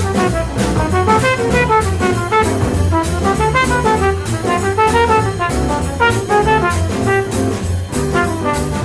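Jazz trumpet playing a fast improvised bebop solo line of quick separate notes, backed by a small-group rhythm section with a moving bass line and steady cymbal strokes.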